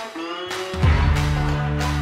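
Background music, with a deep held note coming in just under a second in.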